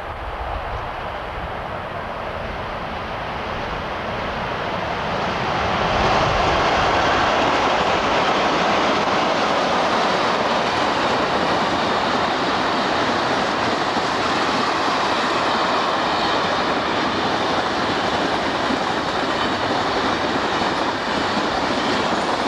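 Container freight train led by an 86 class electric locomotive passing close by: the rolling rumble grows over the first six seconds or so as the locomotives draw level, then holds steady as the container wagons roll past on the rails.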